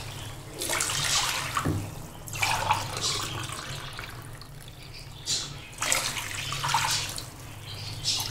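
Water poured from a steel glass into a pot of hot masala, splashing in several separate pours, one glassful after another, over a steady low hum.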